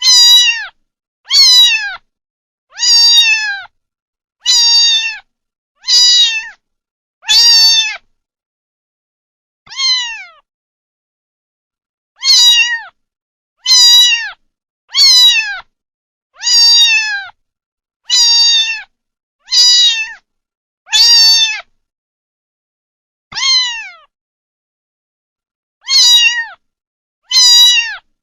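Kitten meowing over and over: about seventeen short, high-pitched meows, each dropping in pitch at the end, roughly one a second with a few longer pauses between them.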